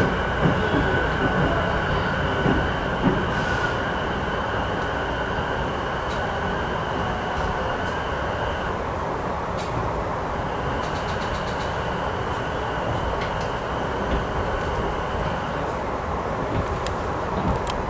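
Sotetsu 12000 series electric train heard from on board: a steady low rumble of wheels and running gear as it nears its terminal stop. Over it sounds a high, steady, whistling tone that breaks off about nine seconds in and returns for about five seconds.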